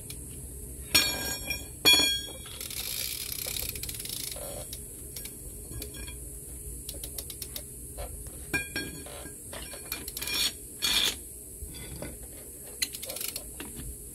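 Hand socket wrench ratcheting in short runs of clicks and steel tools clinking against the wheel's lug nuts while the nuts are run down and tightened, with two sharp metallic clanks about 1 and 2 seconds in.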